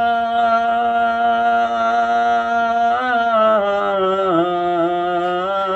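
A man singing unaccompanied, holding one long vowel on a steady note. About three seconds in it steps down in pitch and wavers in an ornamented run before settling on the lower note.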